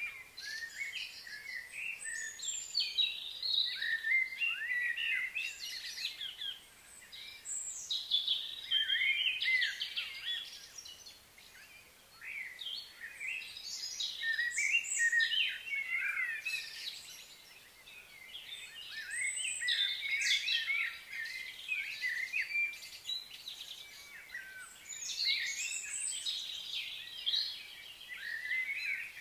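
Several songbirds chirping and trilling in overlapping outdoor birdsong. It swells and eases off in waves every few seconds, over a faint background hiss.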